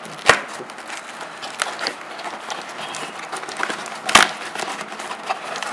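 Scissors slitting the packing tape on a cardboard shipping box, with rustling and scraping of tape and cardboard as it is cut and handled. Two sharp knocks, one about a third of a second in and a louder one about four seconds in.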